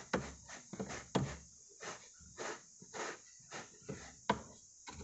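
Hand brush scrubbing dried dirt and dust off a car floor mat in short, irregular strokes, about two a second.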